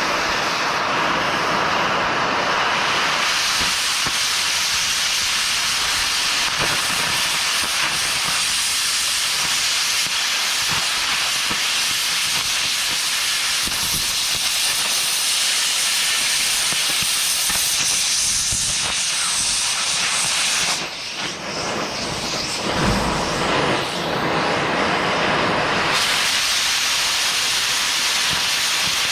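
Oxy-fuel cutting torch running with a loud, steady hiss as it cuts into an auger pilot bit. About three quarters of the way through, the hiss thins for a few seconds, with a few low thumps.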